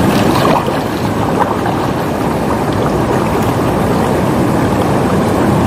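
Shallow, fast-flowing river water rushing over stones close by, a loud steady rush, with a few small splashes about the first second as a person wades into the water.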